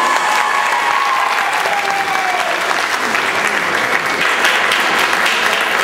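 Audience applauding steadily, many hands clapping at once, with a drawn-out falling tone over the clapping during the first couple of seconds.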